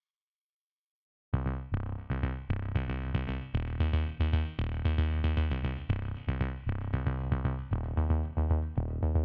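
Electronic background music with a steady drum-machine beat, starting suddenly about a second in after silence.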